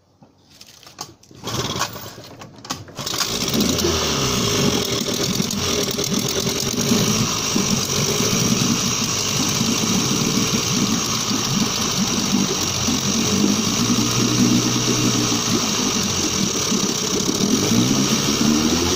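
Two-stroke twin-cylinder engine of a 1977 Suzuki DT9.9 outboard, pull-started: a few short bursts, then it catches about three seconds in and keeps running, its pitch rising and falling as the throttle is worked.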